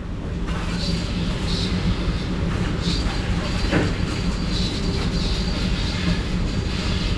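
Steady mechanical rumble with a constant low hum and a faint high whine, broken by a few light knocks.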